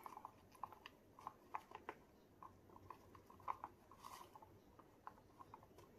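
Near silence: room tone with faint, irregular small taps and clicks.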